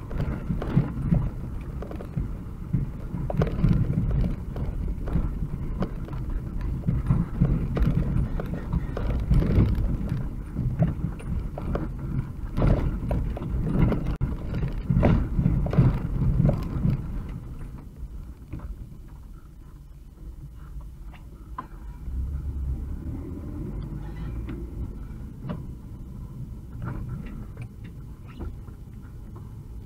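UAZ 2206 van driving over a rough dirt track, heard from the cab: a low engine and road rumble with frequent knocks and rattles from the bumpy ride. About 18 seconds in the knocking thins out and the rumble settles lower and steadier.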